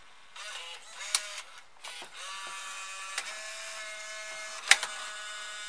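Bose AWRCCJ multi-CD changer's loading motor and gears whirring on without stopping, with a sharp click about a second in and a louder click near the end. The changer never senses that the top-slot disc is in, which the repairer puts down to a failed disc-detection switch.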